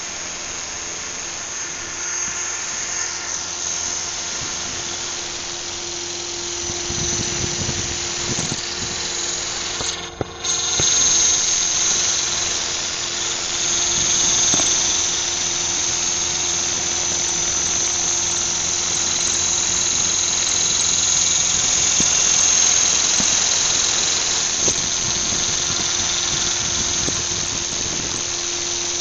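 Radio-controlled model helicopter's motor and rotor running with a steady high-pitched whine, getting louder from about seven seconds in.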